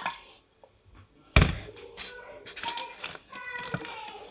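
A loud knock on the tabletop about a second and a half in, as a pitcher is set down. Then sweet drink trickles as it is poured from a plastic measuring cup into plastic popsicle molds.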